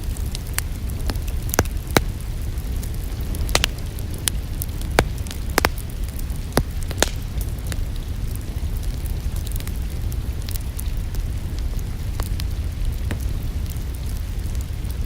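Crackling wood fire in a fireplace: sharp pops and snaps scattered over a steady low rumble, with rain mixed in. The pops come more often in the first half and thin out after about seven seconds.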